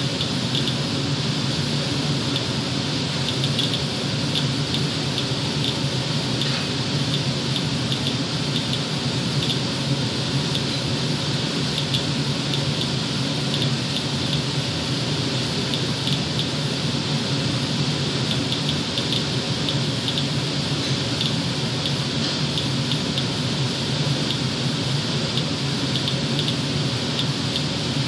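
Inspector Alert Geiger counter clicking at random, roughly two short high ticks a second, as it counts radiation near a household air filter that the owner takes to be radioactive. Under it runs a steady fan-like rush with a low hum.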